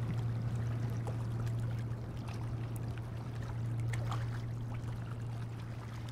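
Small waves lapping and trickling against a rocky shoreline over a steady low hum, the whole slowly fading toward the end.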